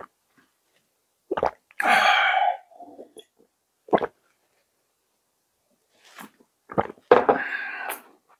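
A person's two short, breathy vocal exhalations, each under a second long, with a few sharp clicks before and between them.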